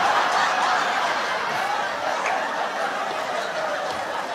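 Laughter from many people together, a continuous wash of overlapping laughs that eases off a little after about two seconds, like an added laugh track.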